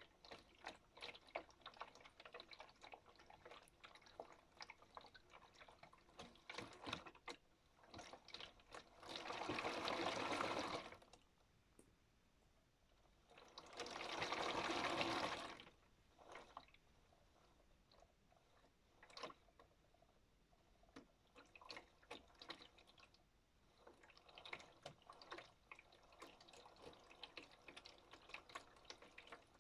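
Modified Miele W1 toy washing machine running a wash: faint water sounds with scattered small clicks and knocks, and two louder rushes of water about two seconds long near the middle.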